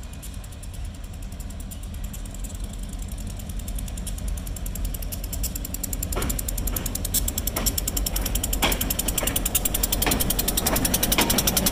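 Diesel freight locomotive approaching slowly, its engine rumble growing steadily louder as it nears. From about halfway through, its wheels click over the track at a slow, uneven beat of roughly two a second.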